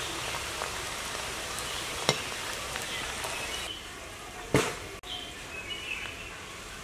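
Hot oil sizzling steadily around bread gulab jamun balls deep-frying in a kadai, growing quieter about four seconds in. A metal slotted spoon knocks against the pan twice, the second knock louder.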